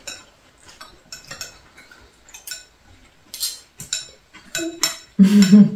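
Chopsticks and spoons clicking and clinking against ceramic bowls during a meal, in scattered light taps, with a short voice sound near the end.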